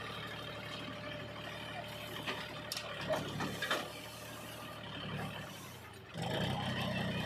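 Heavy diesel machinery running at a steady engine note, with a few knocks and clanks about three to four seconds in. About six seconds in, the engine gets noticeably louder, as if working under load.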